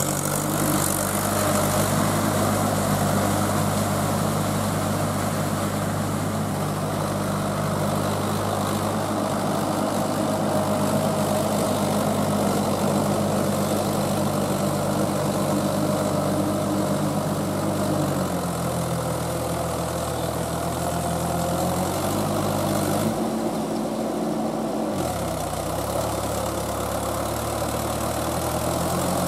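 Mahindra 475 DI tractor's four-cylinder diesel engine running steadily as it pulls through deep mud on cage wheels. Its pitch drops about two-thirds of the way through and shifts briefly again a few seconds later.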